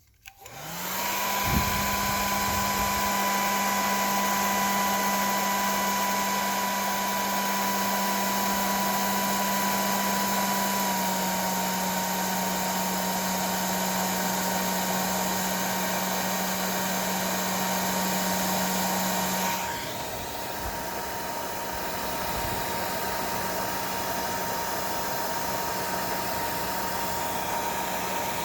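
Heat gun switched on and running with a steady blower whine, melting low-temperature solder heat-shrink sleeves on a wire splice. About two-thirds of the way through, its hum and level drop slightly.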